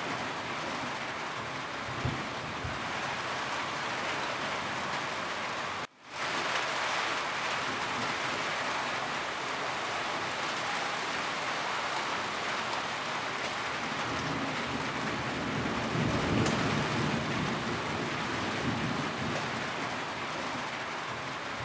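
Steady rain falling on a roof, with low rumbles of thunder about two seconds in and again later. The sound cuts out for a split second about six seconds in.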